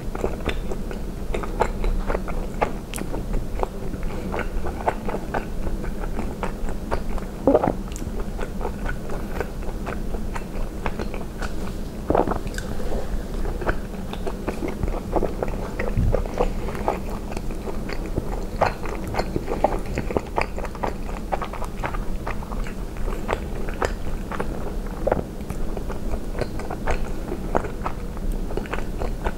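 Close-miked chewing and biting of soft cheese and spinach ravioli in tomato sauce: wet mouth sounds with many small smacks and clicks throughout.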